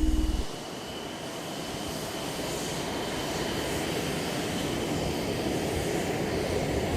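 HAL Tejas jet fighter's engine running: a steady jet rush with a thin high whine, slowly growing louder.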